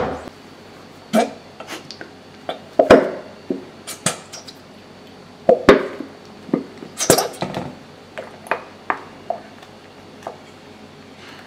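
Irregular clicks, taps and clatters of kitchen dishes and utensils being handled, with a couple of louder knocks about five and a half and seven seconds in.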